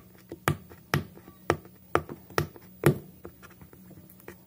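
Fingers and fingernails clicking and tapping against a cardboard retail box as it is pried open: a run of sharp clicks about two a second, fading to fainter ticks after about three seconds.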